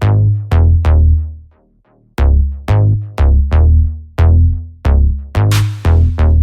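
Electronic background music built on loud, booming bass hits about every half second, with a brief drop-out about one and a half seconds in and a rising hiss near the end.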